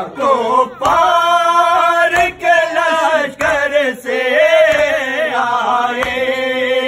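Men chanting a Shia nauha (Muharram lament) together in a sung, wavering melody, with sharp slaps of hands beating on chests (matam) every second or two.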